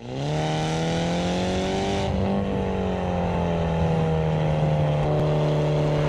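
The turbocharged four-cylinder of a BMW F30 330i, running through an aftermarket Armytrix turbo-back valved exhaust. The engine note rises over the first two seconds, then holds fairly steady as the car drives along.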